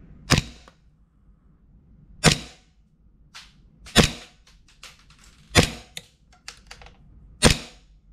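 Airsoft 1911 gas blowback pistol, a Nova Springfield LA Vickers Custom on a Tokyo Marui frame, firing five single shots through a chronograph about two seconds apart, with lighter clicks between the shots.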